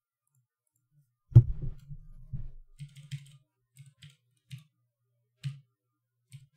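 Silence, then a loud thump about a second and a half in, followed by scattered computer keyboard keystrokes, each a short click with a low thud under it.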